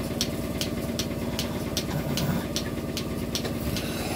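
Vacuum milking machine running while a cow is milked: the pump's steady hum, with the pulsator giving a short regular hiss-click a little more than twice a second.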